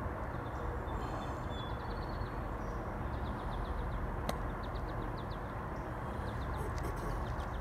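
Steady background noise with small birds chirping in quick runs of short notes, and one sharp click a little past halfway.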